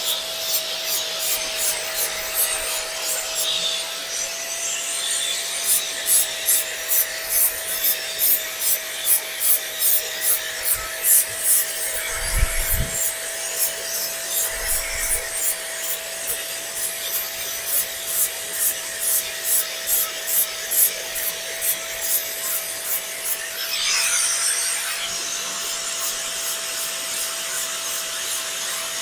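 Small angle grinder with a red abrasive disc running with a constant whine while it grinds down weld beads on a steel exhaust tube. Cleaning up the welds. From about six seconds in, the disc bites the metal in rhythmic passes, about two a second, for some fifteen seconds, with a short low thump partway through.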